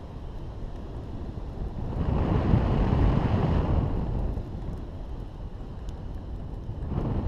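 Airflow rushing over the camera microphone of a hang glider in flight. The wind noise swells about two seconds in, eases off, and rises again near the end.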